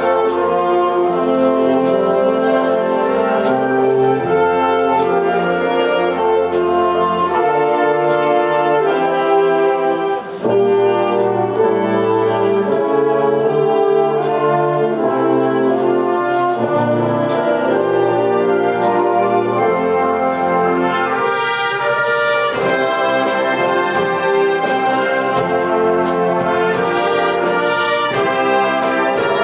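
A large high-school wind band playing full out, trumpets, trombones and horns carrying the tune over percussion strokes that mark a steady beat, with a brief break about ten seconds in.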